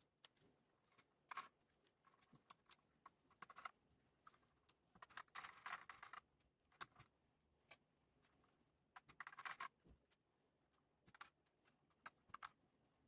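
Typing on a Redragon K596 Vishnu mechanical keyboard with Akko CS Lavender Purple tactile switches and HyperX PBT pudding keycaps: irregular key clacks, with quick flurries of keystrokes about five and nine seconds in.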